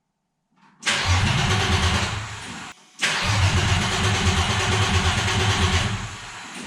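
Engine with no exhaust system fitted being cranked over in two bursts, about two and three seconds long, on a first start attempt, without catching and running.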